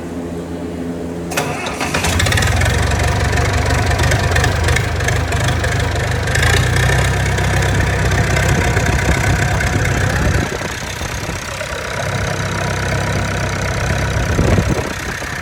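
Freshly overhauled Perkins diesel engine of an Allis-Chalmers 170 tractor starting up: it catches suddenly about a second in and runs loudly, the revs easing off about two-thirds of the way through, rising again and dropping near the end.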